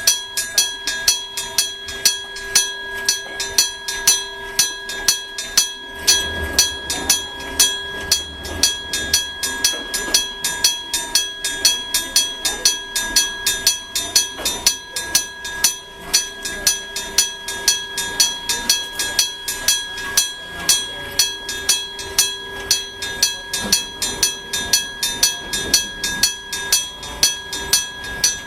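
Japanese railway level-crossing warning gong (electric gong, denshō type) striking over and over at about three to four strokes a second, each strike ringing on.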